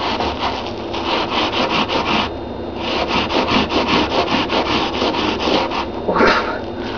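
Scrubby sponge scrubbed back and forth over a rust stain on a textured bathtub surface, about four to five quick rubbing strokes a second, pausing briefly a little over two seconds in before going on.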